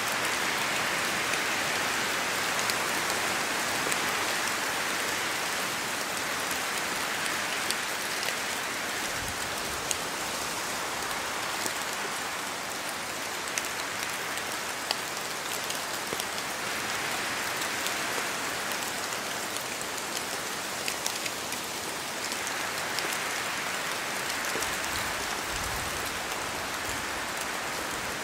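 Steady rain falling in a forest, with scattered individual drops tapping and a gentle rise and fall in intensity every several seconds, which the recording presents as wind stirring the trees.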